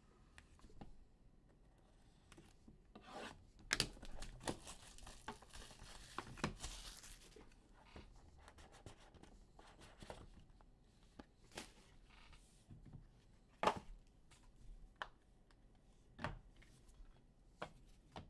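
Sports card packs being torn open and the cards handled: faint rustling and tearing of wrappers, with scattered light taps and clicks. The busiest rustling comes about four to seven seconds in.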